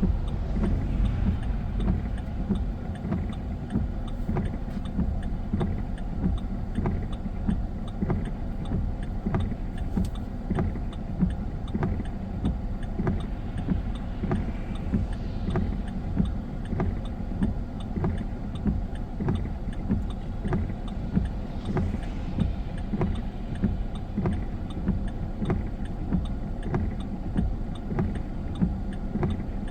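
Car driving in the rain, heard from inside the cabin: a steady low road and engine rumble with a regular tick about every two-thirds of a second.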